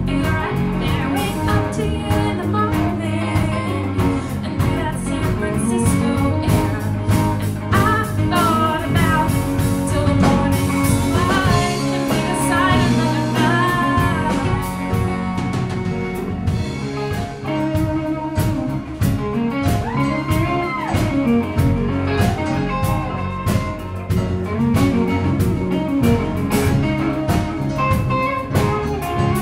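A live band playing a blues-rock song, with electric guitar, electric bass, drum kit and keyboard, and a woman singing.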